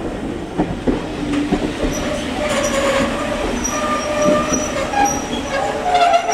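Railway passenger coaches rolling slowly past, their steel wheels squealing on the rails. A high, steady squeal sets in about two seconds in and grows stronger toward the end.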